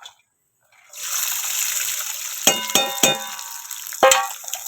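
Steady sizzling hiss of a pan heating on a gas stove, starting about a second in. It is joined by ringing metal clangs of a steel utensil: three close together about two and a half seconds in, and a louder one near the end.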